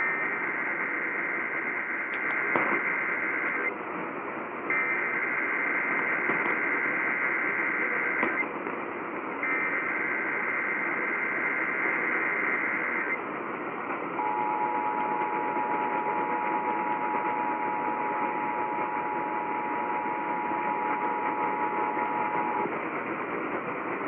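Emergency Alert System tones heard through an AM radio with static hiss: three bursts of the warbling two-tone digital header, then about eight seconds of the steady two-tone attention signal, which stops a little before the end. Together they open a Required Monthly Test of the alert system.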